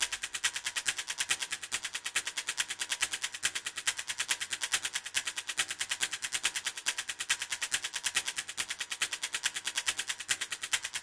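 Intro of a fast, percussive action-film-style music track: a steady, rapid ticking pulse at about eight ticks a second, thin and high with no bass or drums yet.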